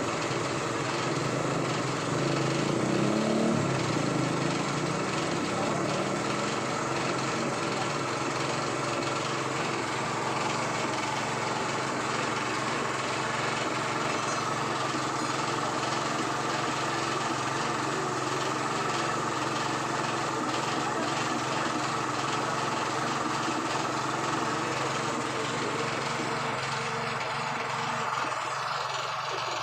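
Small motorcycle engine running steadily, slightly louder for a few seconds near the start.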